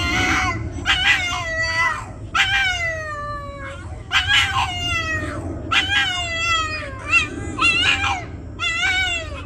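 Two Boston terriers howling together in a run of about eight drawn-out howls, each under a second or so, many sliding down in pitch at the end.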